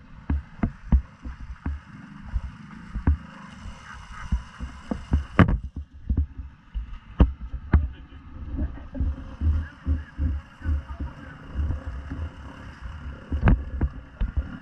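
Uneven low rumbling and thumping from ATVs in deep muddy water, with a few sharp knocks and splashes.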